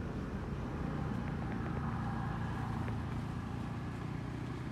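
A motor vehicle's engine running steadily as a low hum, growing a little louder between about one and three seconds in.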